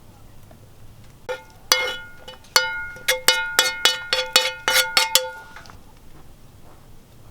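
A metal utensil tapping a ringing dish about ten times in quick succession, each tap leaving a short bell-like ring at the same pitches.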